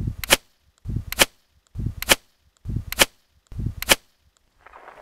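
Potato cannon shots: a low thud then a sharp crack, five times in a row about a second apart, with silence between.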